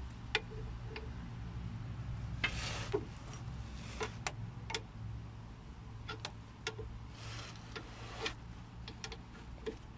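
13 mm ratcheting spanner working on a brake caliper bolt: scattered sharp ticks of the ratchet, with two short rasping stretches, over a steady low hum.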